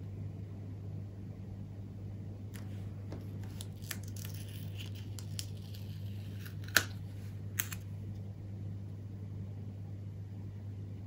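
Paper and card being handled and pressed down by fingers: soft rustling with two sharp taps near the middle, the first the loudest, over a steady low hum.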